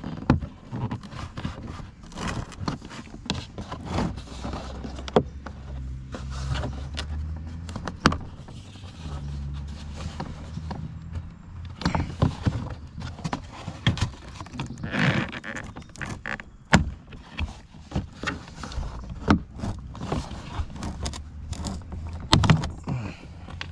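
Plastic front grille of a Porsche Boxster being worked out of the bumper cover by hand: repeated clicks, snaps and rattles of its plastic clips and frame. A low steady hum runs under it for several seconds in the middle.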